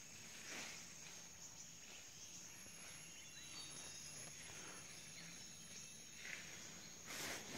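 Faint forest ambience: a steady high insect drone, like crickets or cicadas, with soft rustling and a brief soft whoosh near the end.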